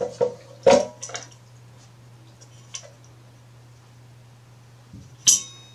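Scattered clicks and clinks of small screws and a sheet-metal motor bracket as they are unscrewed, lifted off a blower housing and set down, with a sharp metallic clink that rings briefly near the end. A steady low hum runs underneath.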